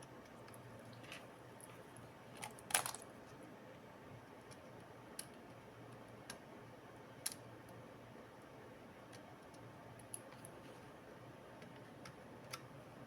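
Scattered small clicks and taps from handling a laptop, with one louder clatter about three seconds in, over a faint steady low hum.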